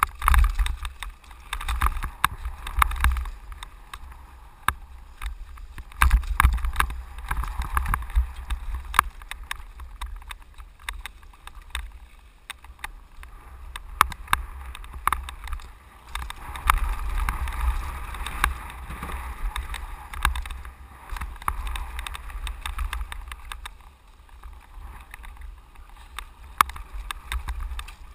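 Mountain bike descending a rough, rocky dirt trail: a steady clatter of tyres and frame over stones, with frequent sharp knocks and rattles, under a low rumble of wind on the microphone.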